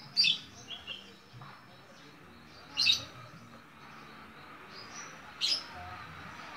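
Male strawberry finch (red avadavat) giving short, high, sharp chirps: three clear ones about two and a half seconds apart, with a few fainter notes after the first. The bird is in breeding condition, which keeps it calling.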